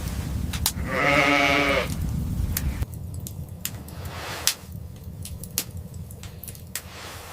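One animal call about a second in, lasting about a second, with a wavering pitch. Under it is a low rumble that stops at about three seconds, with scattered sharp clicks throughout.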